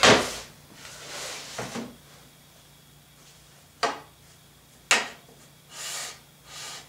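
An aluminium extrusion frame is slid and shuffled across a plywood sheet, giving short scrapes. There are two sharp knocks, about four seconds in and a second later, as it is set into place.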